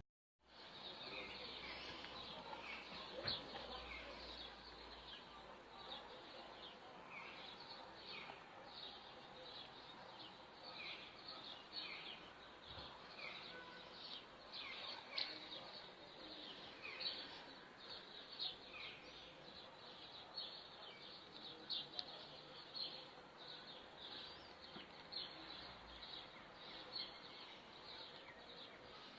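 Birds chirping faintly over a steady background hiss, with many short, quickly falling chirps, one or two a second.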